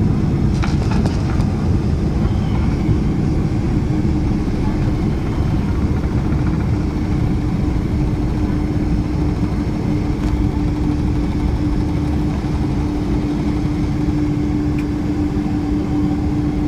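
Cabin noise inside a Boeing 747 on the ground just after landing: a steady deep rumble of engines and airflow, with a steady hum coming in about four seconds in and growing stronger.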